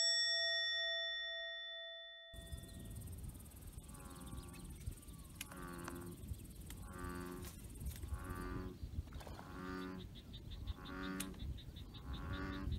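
A chime rings and fades over about two seconds. Then an American bullfrog calls from the pond: a low, moo-like call repeated about every second and a half, some eight times.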